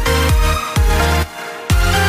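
Electronic dance music with a steady kick-drum beat, which drops out briefly just after the middle and comes back.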